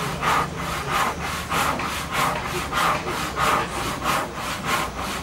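Rhythmic rasping back-and-forth strokes, about eight of them evenly spaced a little over half a second apart.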